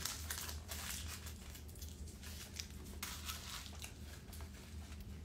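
Paper food wrapper crinkling and tearing as it is handled, a run of irregular crackles over a steady low hum.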